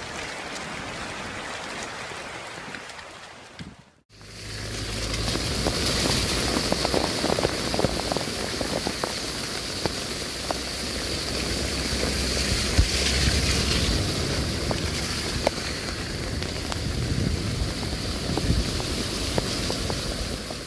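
Steady hiss of rain fading out, then, after a sudden cut, the loud continuous rush of a swollen, muddy flooding river, with a deep rumble underneath.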